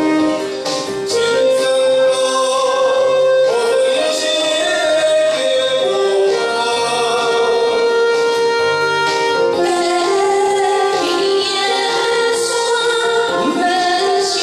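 A man and a woman singing a slow duet into microphones over a karaoke-style backing track, with long held melody notes.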